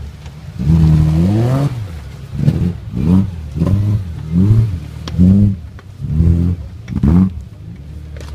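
Nissan Patrol off-road racer's BMW M3 engine revved hard and let fall over and over, about once a second, as the truck claws up a steep muddy slope.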